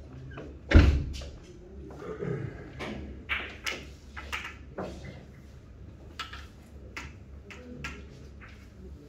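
Billiard balls knocking together and off the cushions after a shot on a carom table: a loud thump about a second in, then a scattered run of sharp clicks and knocks that thin out over several seconds.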